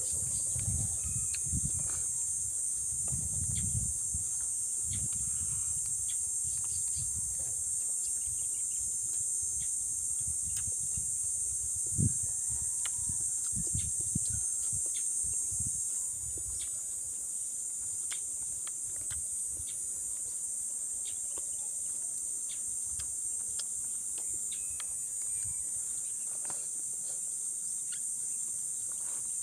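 Steady, high-pitched chorus of insects, with close chewing and eating sounds in the first few seconds and again about twelve to fifteen seconds in, including a sharp knock near the middle.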